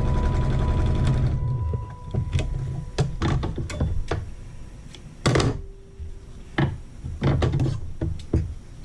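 Electric sewing machine running steadily and stopping about a second and a half in. Scattered clicks and knocks from handling follow.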